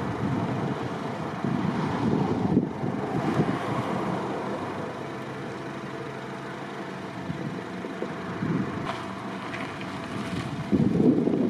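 Gusty wind rumbling on the microphone, surging about a second and a half in and again near the end.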